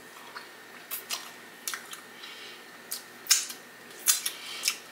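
Close-miked chewing of a waffle: a string of sharp, wet mouth clicks and crisp crunches, about eight in all, spaced irregularly.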